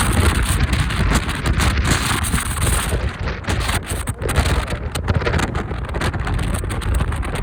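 Typhoon-strength wind buffeting the microphone of a moving motorbike: a heavy low rumble with gusting hiss that rises and falls, mixed with road and vehicle noise.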